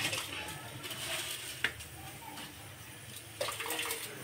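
Water running and splashing, as from a kitchen tap, with one sharp click about one and a half seconds in.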